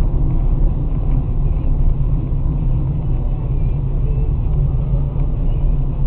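Steady low rumble of a car driving on a wet highway, heard from inside the car: engine and tyre noise.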